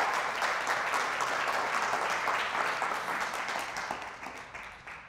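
Audience applauding, the clapping thinning and dying away over the last couple of seconds.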